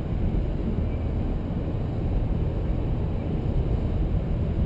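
Steady low road rumble inside the cabin of a 2011 Chrysler 200 sedan cruising at about 60 mph.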